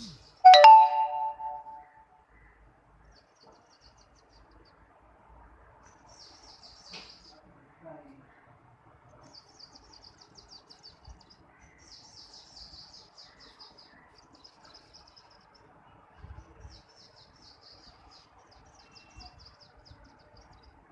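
Small birds chirping and trilling faintly in quick high runs, over and over. About half a second in, a loud, short pitched call rings for roughly a second.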